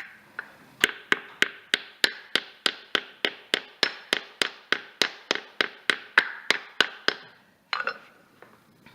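Steady run of hammer taps, about three a second, driving a new torque converter pump seal into a Porsche Tiptronic transmission case to seat it flush. The taps stop a little after seven seconds, and one short knock follows.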